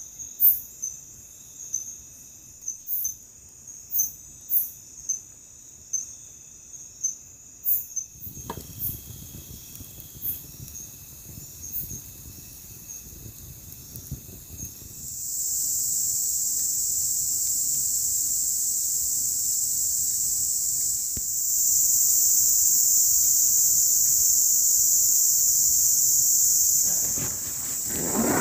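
Night-time forest insects: short, repeated high-pitched chirps at first, then from about halfway through a loud, steady high-pitched insect drone that holds until near the end.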